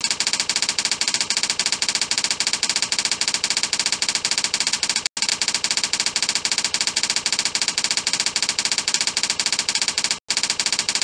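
Typewriter sound effect of a slide-show text animation: a rapid, even stream of key-like clicks, many per second, with two brief breaks about five seconds apart where the looped effect restarts.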